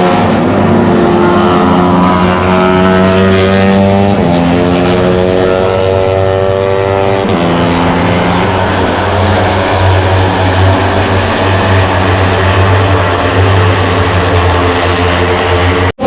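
Moto3 race bikes' single-cylinder four-stroke engines at high revs, the pitch climbing through each gear and dropping sharply at upshifts about four and seven seconds in. The sound cuts off abruptly just before the end.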